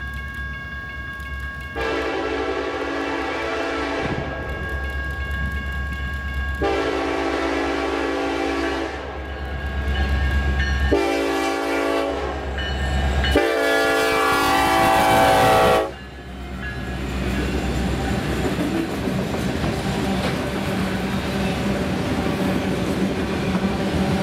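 Union Pacific freight locomotive's air horn sounding four blasts, long, long, short, long: the grade-crossing signal. The last blast cuts off suddenly, and the steady rumble and clatter of the passing freight cars follows.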